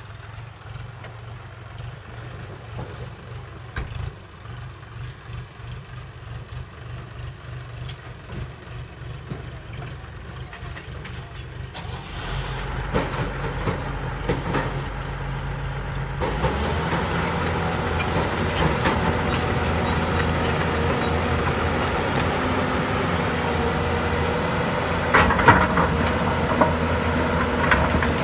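Hyundai 220 crawler excavator's diesel engine running at low speed, then rising in two steps, about twelve and sixteen seconds in, to a steady, louder working speed, with occasional knocks.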